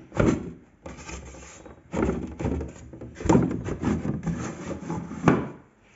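Plywood panel of a homemade wooden box being slid and pushed shut: a run of wooden scraping strokes broken by knocks, the last and loudest knock about five seconds in.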